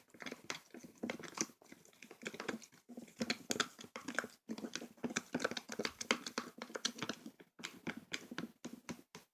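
Thick mixture of hair conditioner and powdered blush being stirred in a bowl for slime: a run of irregular wet clicks and crackles from the mixing utensil working through the paste.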